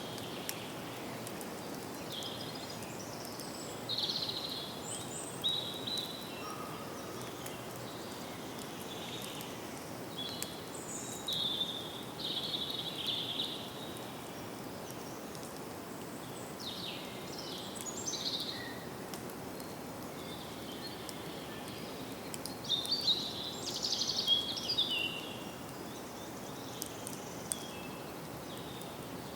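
Forest ambience: songbirds calling and singing in short scattered phrases over a steady background hiss, the busiest burst of song near the end.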